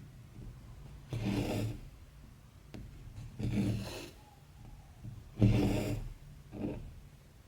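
Embroidery thread being pulled through cross-stitch fabric, four separate rasping pulls of about half a second each.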